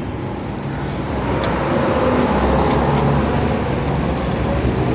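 Puma 3065 3 HP air compressor running steadily under test, a dense mechanical clatter that grows a little louder about a second and a half in.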